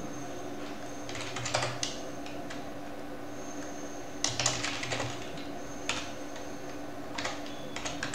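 Computer keyboard keystrokes in short runs of quick clicks with pauses between them.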